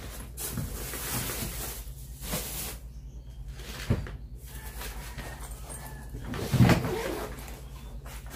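Handling of a hard-shell suitcase's zippered fabric lining: repeated rustling and scraping, with a sharp knock about four seconds in and a louder short sound about six and a half seconds in.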